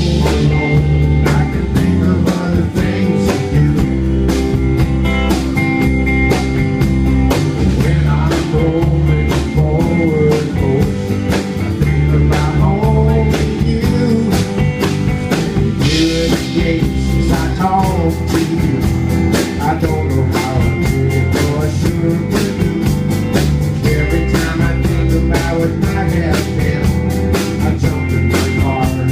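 Live band music: a man singing over a strummed acoustic guitar, with a drum kit keeping a steady beat.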